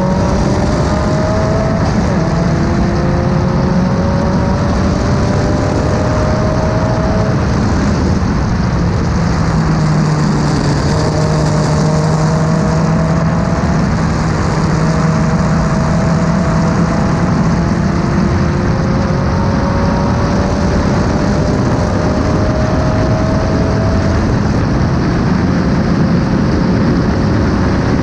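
Race car engine running hard at racing speed over loud wind and road noise. Its note climbs slowly and then drops back again several times.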